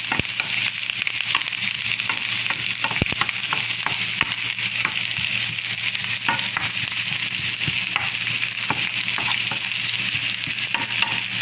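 Sliced red onion sizzling in hot oil in a nonstick frying pan. A wooden spatula stirs the slices, with scattered light clicks as it knocks against the pan.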